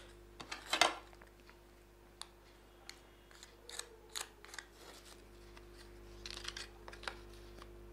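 Aluminium foil and foil takeaway trays being handled, with scattered faint crinkles and light clicks of a spoon against them; the loudest crackle comes about a second in.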